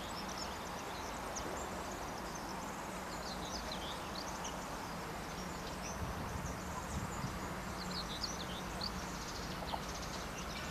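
Birds chirping and singing in short repeated calls, over a steady low hum.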